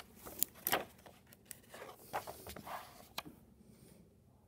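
A page of a hardcover picture book being turned by hand: several paper rustles and light ticks over about three seconds.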